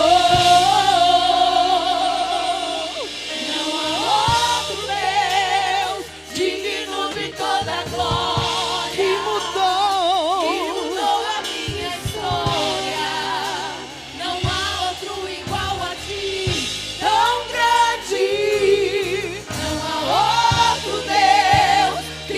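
A gospel vocal group singing a worship song over instrumental accompaniment, holding long notes with vibrato over steady bass notes.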